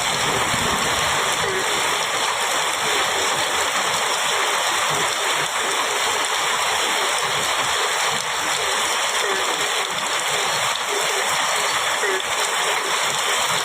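Heavy rain falling steadily on a metal roof, an even hiss that never lets up, with the tail of a thunder rumble dying away in the first second.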